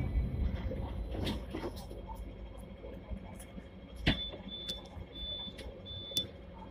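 Inside a Hong Kong tram standing at a stop: a low rumble with scattered clicks and knocks, a sharp clack about four seconds in, then four short high-pitched beeps over the next two seconds.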